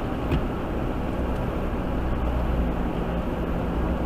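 Steady engine and road noise inside a pickup truck's cab while it is driving, with a faint click just after the start.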